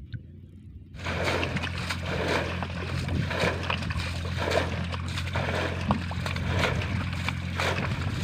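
Muddy water splashing and sloshing as hands work through a shallow pool, with repeated splashes about once a second, over a steady low hum. It starts suddenly about a second in, after a faint stretch with a few short chirps.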